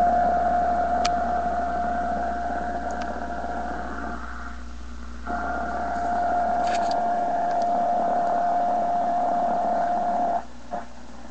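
Shortwave drone from a 1936 RCA 5T5 five-tube radio's speaker: a steady held tone over static hiss and a low hum. The tone cuts out for about a second midway, comes back, and breaks off near the end with a few crackles.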